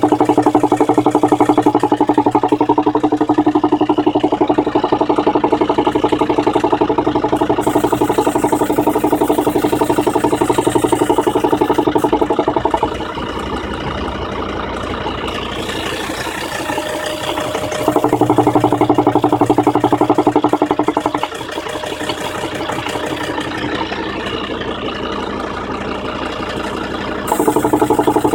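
A 2003 Volvo V70 D5's five-cylinder turbodiesel idling, with the popping noise that the owner suspects comes from a vacuum leak or an engine mount issue. It runs steadily, growing quieter about halfway through, louder again for a few seconds, then quieter until it rises near the end.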